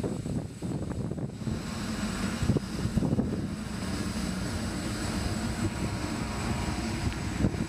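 Wind buffeting the microphone on a warship's open deck at sea: a steady, rough low rumble.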